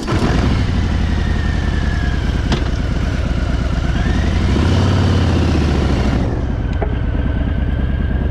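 Harley-Davidson Fat Boy's V-twin idling with a low, steady rumble just after it has been started. The engine note swells briefly about halfway through, then settles back to idle.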